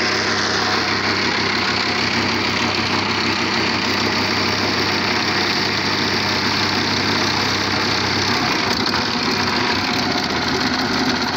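Concrete-making machinery, a concrete mixer and a motor-driven vibrating table under a filled tile mould, running with a steady engine-like drone. A low hum in the drone drops out about eight and a half seconds in.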